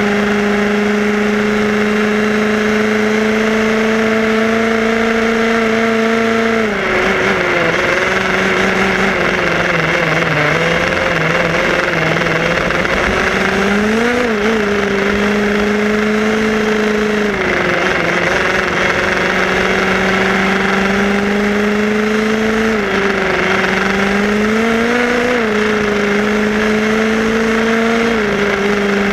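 HPI Baja 5B SS RC buggy's two-stroke petrol engine running at speed, heard from on board, with a rushing noise of wind and tyres underneath. Its high, steady note dips and climbs back several times as the engine speed falls and rises.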